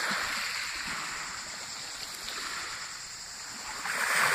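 Small waves washing onto a pebble beach: a soft rushing hiss that swells just after the start and again, louder, near the end.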